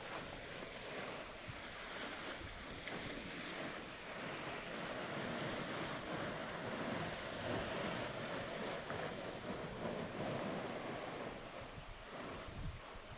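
Sea waves washing against the shore, a steady hiss of surf that swells a little in the middle, with some wind.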